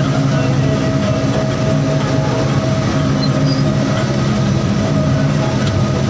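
Combine harvester running steadily while cutting grain, its engine drone and working machinery loud and continuous, heard from the operator's seat.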